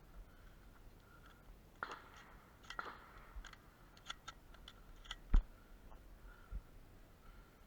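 Faint, scattered clicks and small knocks, with one sharper knock about five seconds in.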